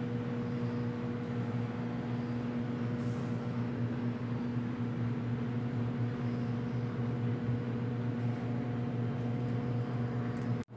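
Steady low electric hum of a kitchen appliance motor, a constant drone with several fixed pitches. It cuts out for an instant near the end.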